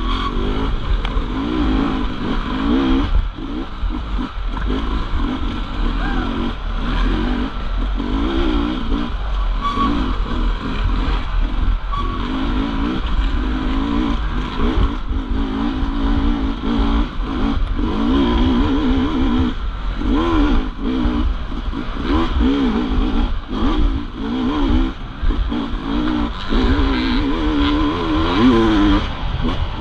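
Off-road 250 cc class motorcycle engine being ridden hard, its pitch climbing and dropping every second or so with constant throttle changes, over a continuous low rumble.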